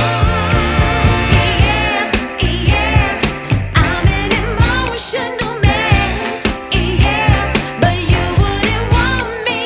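Pop song with a sung vocal over a steady beat.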